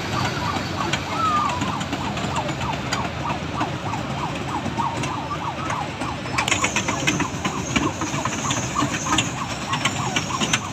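Fairground din: crowd voices and ride machinery, with short wavering, siren-like tones throughout. About six seconds in, a rapid clatter and a high hiss join as a small kiddie train ride runs round its track.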